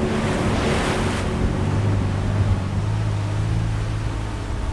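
Chevy Colorado ZR2 pickup driving through a muddy puddle: water splashing for about the first second, then the engine running steadily as the truck rolls along the dirt trail.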